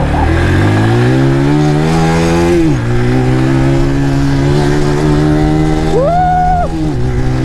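Single-cylinder-sounding motorcycle engine pulling hard through the gears, its revs climbing steadily and then dropping at an upshift about three seconds in and again near the end.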